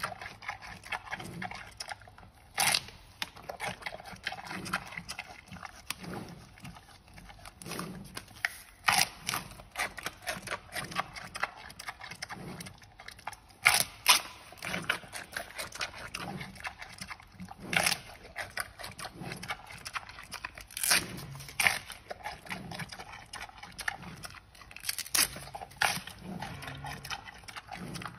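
Giant panda chewing bamboo: continual chewing broken by a sharp crunch of the stalk every few seconds.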